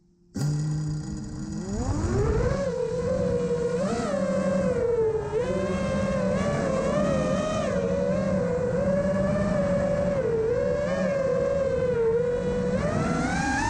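Model airplane's motor and propeller, heard from the plane's onboard camera. The motor starts suddenly just after the beginning, its whine climbs steeply in pitch about two seconds in as the throttle opens for take-off, then holds a steady whine that wavers up and down with the throttle in flight.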